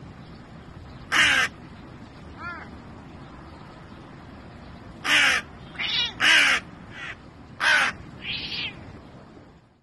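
Hooded crow cawing: one harsh caw about a second in, then a quick run of about six caws starting about five seconds in.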